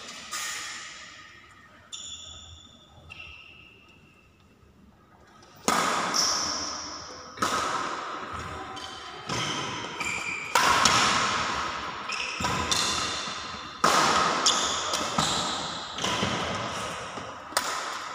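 Badminton racket strikes on a shuttlecock in a rally, sharp hits about every second or so, each ringing on in a large hall's echo. The hits are sparse and faint at first and come loud and steady from about a third of the way in.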